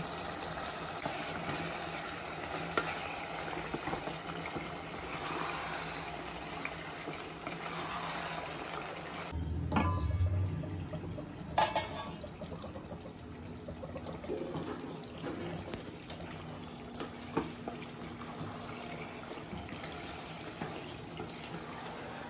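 A wooden spatula stirring chicken masala as it cooks in a pot on the stove, with a few sharp knocks of the spatula against the pot.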